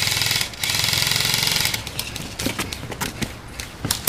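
Airsoft electric rifle firing full-auto bursts: a fast mechanical rattle that breaks off about half a second in, resumes for about a second, then stops, followed by scattered sharp clicks and knocks.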